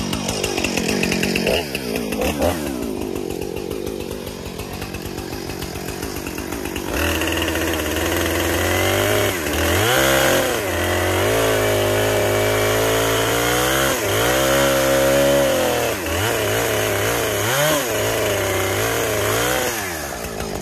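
Husqvarna 455 Rancher two-stroke chainsaw dropping back to idle, then revved up about seven seconds in and held at high throttle, with several brief dips in revs as it cuts branches off a fallen tree.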